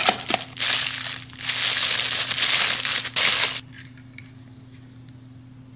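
Clear plastic wrapping crinkling loudly as it is pulled off a camera-lens-shaped coffee mug. It stops about three and a half seconds in, leaving only a few faint handling clicks.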